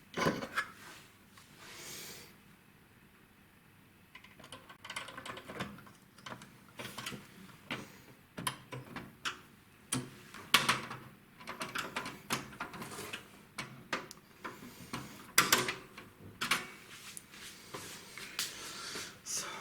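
Irregular clicks, taps and knocks of hands handling PC hardware and plugging in connectors, with a quieter pause of about two seconds near the start and a busy run of sharp clicks after it.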